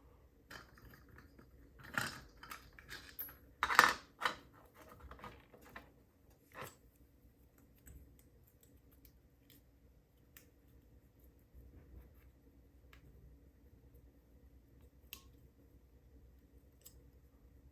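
Small metallic clicks and taps of a padlock and its lock core being handled with a tool, as an attempt is made to shim the core out. A cluster of sharp clicks comes in the first few seconds, the loudest just before four seconds in, then only occasional light ticks.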